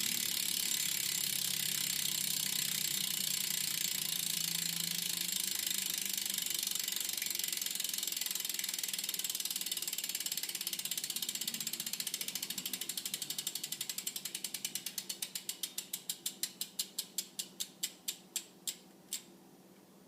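BMX rear wheel's Proper Magnalite cassette hub ratcheting loudly as the free-spinning wheel coasts down. A fast buzz of pawl clicks slows into separate, ever wider-spaced clicks and stops about a second before the end.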